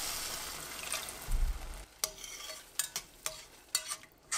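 Water poured into a hot pan of tomato-spice masala, sizzling and hissing, then a dull knock about a second and a half in. After that, a spoon stirs and scrapes the stainless steel pot with short sharp clinks about every half second.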